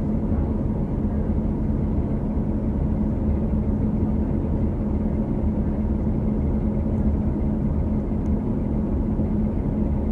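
2018 New Flyer XD40 transit bus with a Cummins L9 diesel and Allison B3400xFE transmission running, a steady low drone with a constant hum. This is the odd transmission-bearing noise found on several buses of this series.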